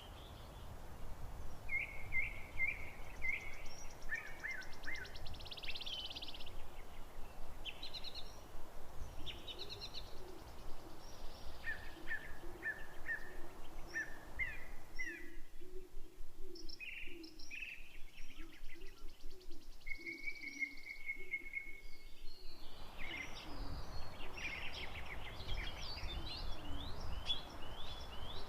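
Many wild birds chirping and singing over a steady low rushing background. For several seconds past the middle the rush drops away, leaving only the birdsong, including one long whistled note.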